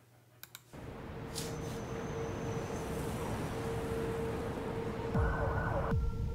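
Two soft clicks, then the opening of a music video's soundtrack: a building, hiss-like ambient drone with a steady held tone, joined about five seconds in by deep falling booms, and changing to higher held tones near the end.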